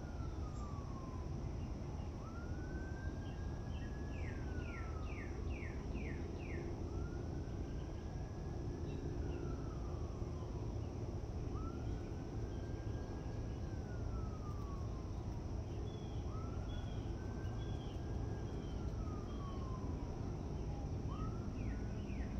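A siren wailing, slowly rising, holding and then falling in pitch, about every four and a half seconds, over a steady low rumble.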